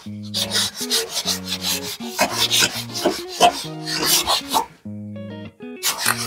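Sandpaper rubbed across a car body panel in quick back-and-forth strokes, about three or four a second, smoothing old body filler and flaking paint before new filler goes on. The strokes pause about five seconds in, then one more short burst comes near the end, over background guitar music.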